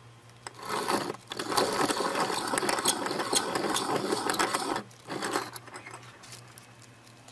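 Hand-cranked piston ring filer grinding the end of a piston ring to open an end gap that was too tight. One long burst of grinding of about four seconds starts about half a second in, then a shorter burst follows just after five seconds.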